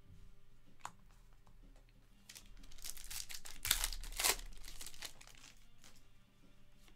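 A foil trading-card pack (Panini Chronicles Draft basketball) being torn open and crinkled by hand. It starts about two seconds in and runs to about six seconds, with two louder rips in the middle.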